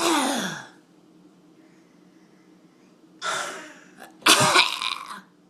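Harsh, noisy coughing. One cough tails off at the start, then two more come about three and four seconds in, the last one the loudest and partly voiced.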